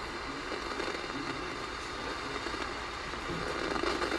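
FM radio static from a GE 7-4657A Softlite clock radio's speaker as the tuner sits between stations: a steady hiss with some crackle.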